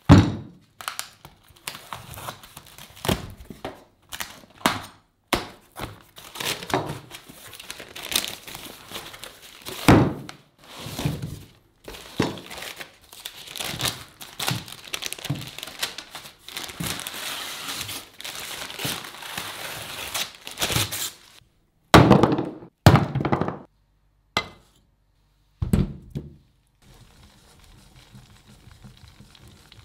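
A large boxed block of butter set down with a thump on a plastic cutting board, then cardboard and a paper wrapper crinkling and tearing as the block is unwrapped. Further loud thumps come about two thirds of the way in and near the end.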